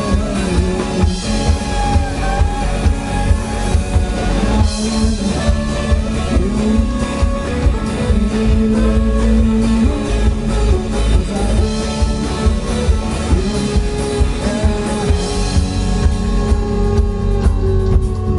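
Live band playing an instrumental passage: fiddle, electric guitar and drum kit, with a steady drum beat.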